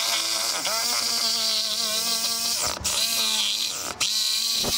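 Corded reciprocating saw running with its blade in the gap between a wooden fascia board and the roof sheathing, cutting through the nails. The motor's pitch wavers under load, and it stops briefly twice, about three and four seconds in, spinning back up each time.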